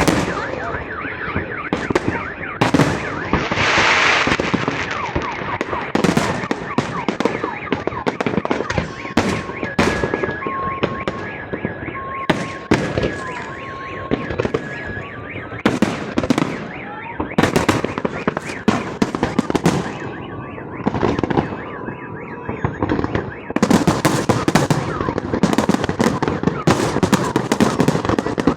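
Fireworks salute going off: repeated sharp bangs and crackle from bursting shells, with a dense hissing burst about four seconds in. In the middle stretch a car alarm beeps in two alternating tones over the bangs.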